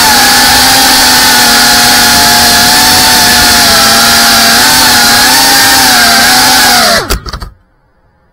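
GEPRC Cinelog35 cinewhoop's brushless motors and propellers buzzing loudly and steadily, picked up by the onboard camera. About seven seconds in the pitch drops, a few knocks sound as the drone lands, and the motors cut off suddenly.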